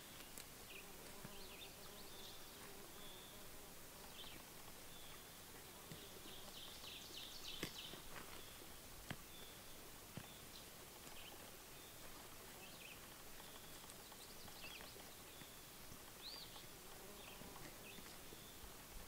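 Faint outdoor ambience: scattered short bird chirps, an insect buzzing, and a few soft clicks around the middle.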